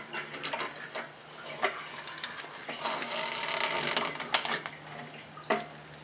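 Fuel pump and sending unit assembly being worked up through the opening of a steel fuel tank: metal clinking and knocking against the tank's rim, with a longer scraping rasp about three seconds in.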